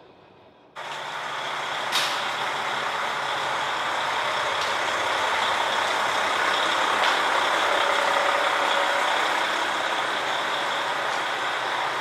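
JR Hokkaido KiHa 40 and KiHa 150 diesel railcars standing at a platform with their engines idling: a steady, loud mechanical hum and rush, with a short sharp click about two seconds in.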